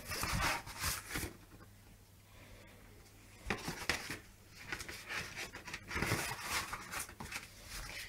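Cardboard mailer envelope rustling and scraping as a boxed Windows disc pack is slid out of it and handled. There are irregular rubs and scuffs, with a short lull before more handling noise about halfway through.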